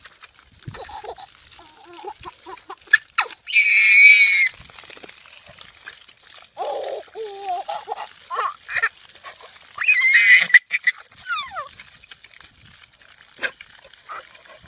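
A baby squealing and shrieking with laughter in short bursts, the two loudest and highest shrieks about four and ten seconds in, with lower gliding squeals and giggles between.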